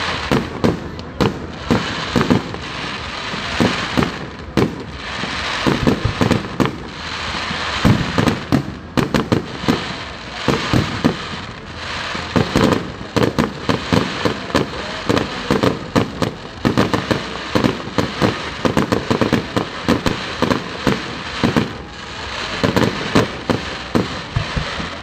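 Aerial fireworks display going off in rapid, irregular volleys: sharp bangs, often several a second, over a continuous hiss.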